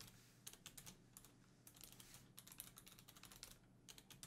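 Faint typing on a computer keyboard: a quick, irregular run of key clicks.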